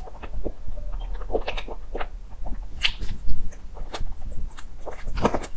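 Close-miked chewing and wet mouth smacks of a person eating soft cake, with irregular short clicks of varied loudness.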